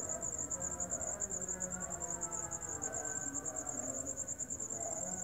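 A cricket trilling steadily at night: a high, rapid pulsed chirp of about ten pulses a second. Fainter wavering sounds lie underneath.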